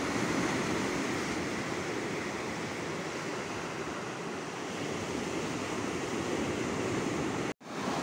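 Heavy storm surf breaking and washing up onto a rocky shore: a steady rush of waves, one after another. The sound drops out for an instant near the end.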